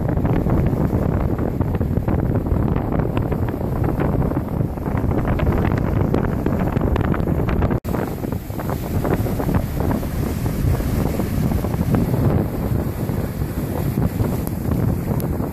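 Steady wind buffeting the microphone, with a sudden brief cut about halfway through.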